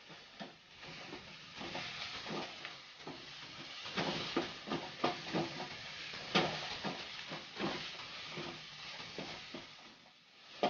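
Sliced onions and ginger-garlic paste frying in ghee and oil in a nonstick kadai, sizzling while a wooden spatula stirs them, with irregular scrapes and taps of the spatula against the pan.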